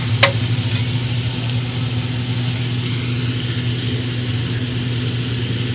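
Diced bacon sizzling in a cast-iron Dutch oven over a steady low hum, with a metal spoon clinking against the pot twice in the first second.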